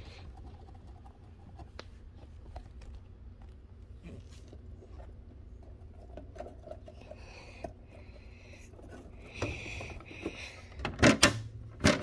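Faint rustling and handling of a hand puppet and plastic toy dollhouse with small clicks, then a few loud knocks on the plastic dollhouse near the end.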